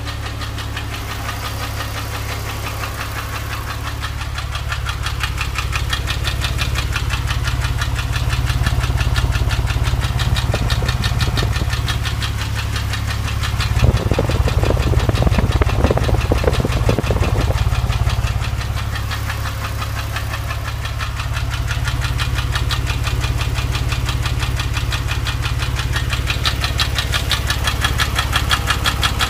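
Porsche 997's flat-six engine idling warm, with a fast, regular ticking clatter running through it: an unexplained engine noise the owner is asking about. It gets a little louder for a few seconds around the middle.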